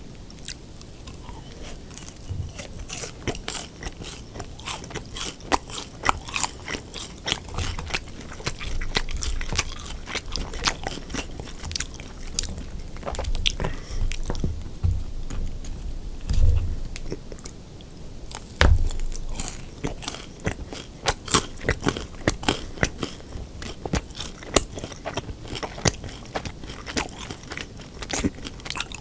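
A person eating close to the microphone: steady chewing with many sharp crunchy bites and crackles, and occasional heavier low thumps.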